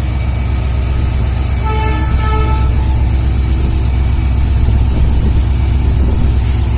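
WDP4D diesel-electric locomotive's two-stroke V16 diesel engine running hard under load as it notches up and accelerates the train away, a deep, steady throb heard from a coach behind, with track noise.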